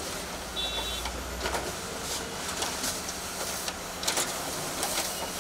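Konica Minolta bizhub 367 monochrome laser photocopier running with a steady whir, with a few short clicks.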